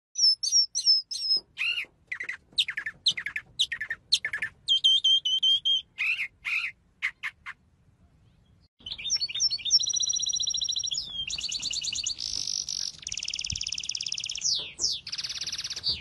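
A mockingbird singing a varied song of short whistled phrases and chirps. About halfway through it pauses briefly, then carries on with fast, buzzy trills and rattles.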